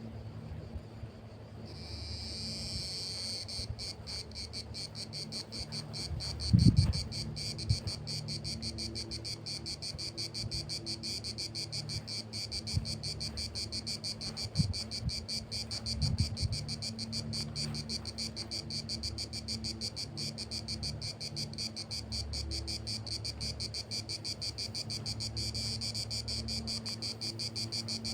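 Insects trilling steadily, a fast pulsing high-pitched chorus that starts about two seconds in. A couple of short low thumps fall around a quarter and halfway through.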